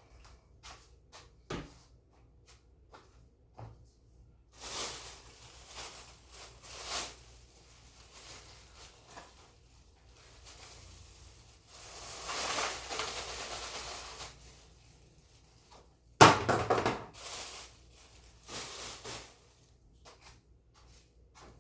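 Hand cleaning of a floor: several swishing strokes with small clicks in between, and one sharp loud knock about two thirds of the way through.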